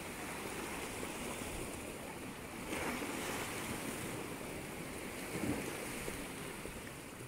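Sea surf washing over rocks at the shoreline: a steady wash that swells louder about three seconds in.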